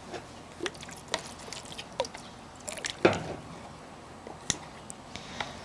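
Gloopy, half-set clear-glue slime being stirred in a bowl as saline activator is worked in: scattered wet squelches, drips and small clicks, the loudest a wet plop about three seconds in.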